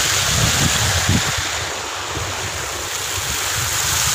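Steady rush of irrigation water pumped from a borewell, with wind buffeting the microphone in gusts.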